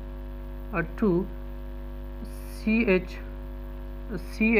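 Steady electrical mains hum, with three short pitched sounds that bend in pitch over it, about a second in, near three seconds and at the end.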